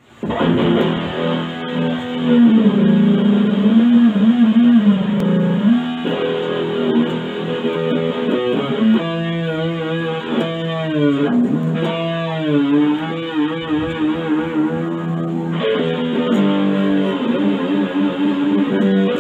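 Electric Stratocaster guitar played through an amplifier: sustained notes and chords whose pitch wavers and dips smoothly, with a few short breaks between phrases.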